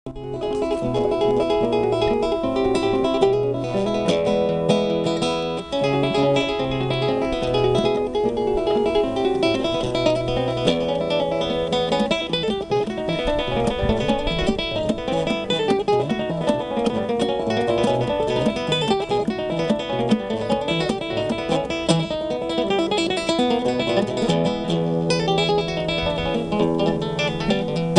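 Acoustic guitar music, with plucked and strummed notes at a steady level.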